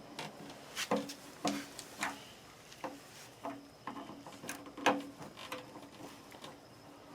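Irregular small metallic clicks and scrapes of a screwdriver and wires being worked at the terminal screws of an electric water heater's lower thermostat as its wires are taken loose, with one sharper click about five seconds in.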